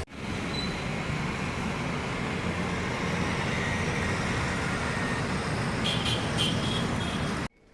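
Steady road traffic noise, with a few short high beeps about six seconds in.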